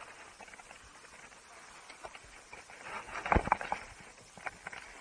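Ski gear clicking and knocking on snow over a faint hiss, with a cluster of sharp knocks about three seconds in.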